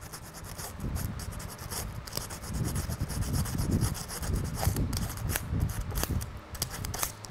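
A small piece of emery rubbed back and forth in rapid short strokes on the exposed steel of a model railway rail, cleaning it to bare metal so it will take solder.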